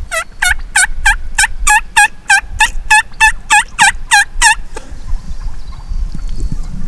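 A long run of about fifteen loud, evenly spaced turkey yelps, roughly three a second, stopping after about four and a half seconds.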